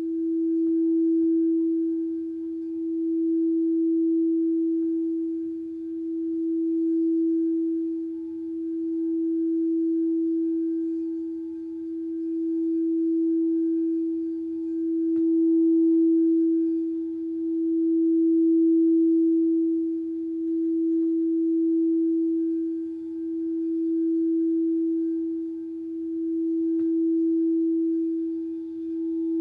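Singing bowl sounding one sustained, steady low-middle tone with faint higher overtones, swelling and ebbing about every three seconds.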